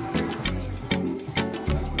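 Dance music with a steady beat of about two strokes a second over a bass line, playing while the musical chairs players circle the chairs.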